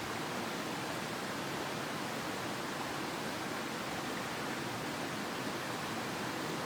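Mountain headwater stream rushing steadily over rocks, a continuous even wash of water noise.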